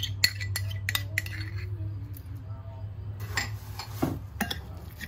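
Metal spoon clinking and scraping against a ceramic bowl in a few sharp separate knocks while red pepper paste is mixed into crushed garlic, over a steady low hum.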